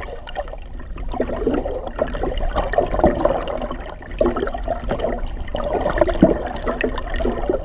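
Water sloshing and rushing against an underwater camera housing as it moves through the water: a muffled, uneven wash.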